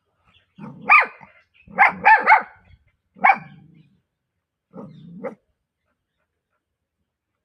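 Pomeranian puppy barking: a quick run of sharp, high-pitched yappy barks in the first few seconds, then two softer barks about five seconds in.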